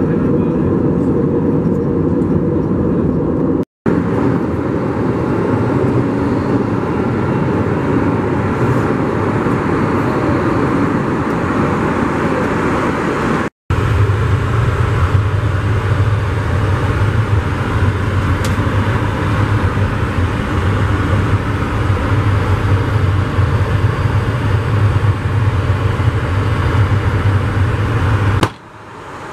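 Steady rushing cabin noise of an Airbus A320neo airliner in flight, heard in three short clips split by brief cuts. In the last clip, inside the lavatory, a deeper low hum is added, and the sound drops away sharply near the end.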